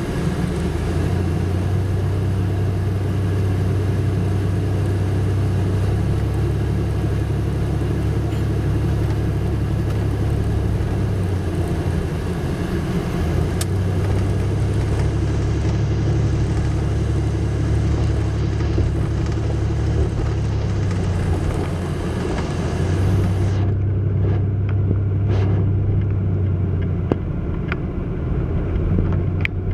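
Vehicle engine and road noise heard from inside the cabin while driving: a steady low drone that shifts up and down in pitch several times. The hiss above it drops away about three-quarters of the way through.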